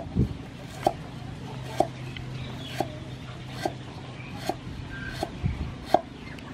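Cleaver slicing lemongrass stalks on a round wooden chopping board: a sharp knock of the blade on the wood about once a second.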